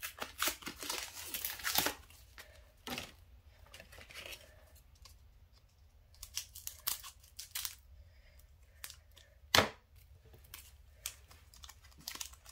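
Foil Pokémon booster pack being torn open and crinkled, a dense rustle of tearing foil in the first two seconds. Then quiet handling with scattered light clicks and one sharp tap a little before the end.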